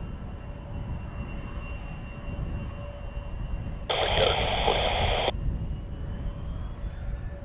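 Airband scanner radio giving a short burst of static, about a second and a half long, that starts and cuts off abruptly about four seconds in, over a steady low wind rumble on the microphone and a faint distant jet engine whine.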